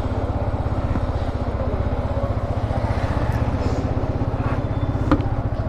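A motorcycle engine idling steadily with an even, rapid pulse.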